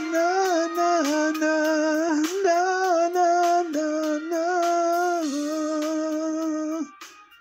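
A voice singing a wordless melody in long held notes over a karaoke backing track with a steady ticking beat. The voice stops about seven seconds in.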